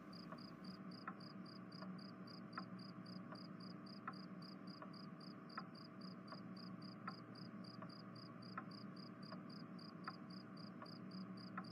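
Faint crickets chirping in an even, rapid pulse, about four chirps a second, with faint regular ticks beneath.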